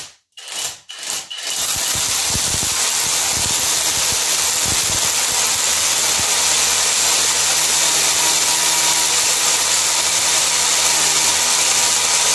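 Einhell Herocco brushless cordless rotary hammer hammer-drilling into a concrete wall. After a couple of short stop-start bursts it settles, about two seconds in, into running steadily under load.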